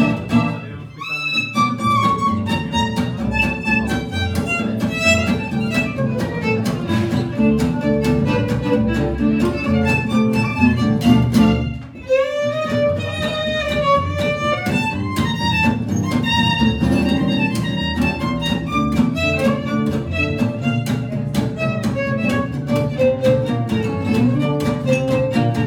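Live acoustic trio: bowed violin playing the melody over rhythmically strummed acoustic guitar and plucked upright double bass. The music briefly drops away about a second in and again about twelve seconds in.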